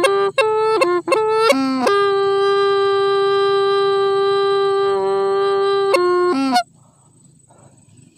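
Hmong raj le bamboo flute playing: a few short notes, one long held note of about four seconds, then two quick notes ending in a falling slide, after which the playing stops about six and a half seconds in.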